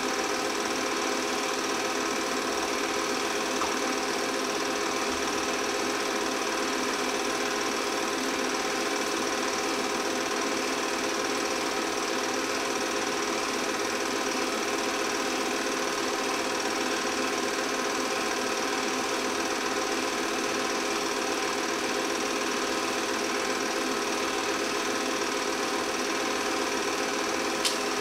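8 mm film projector running: a steady mechanical whir and chatter from the film being pulled through the gate, with a single sharp click near the end.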